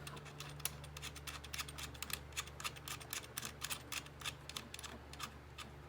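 Many small, irregular clicks and scratches of things being handled on a workbench, over a steady low hum.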